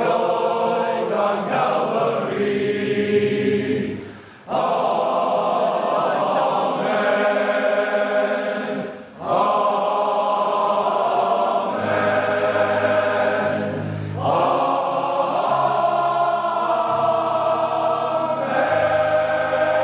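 Male voice choir singing sustained chords in harmony, with brief breaks between phrases twice and deep bass notes joining about twelve seconds in.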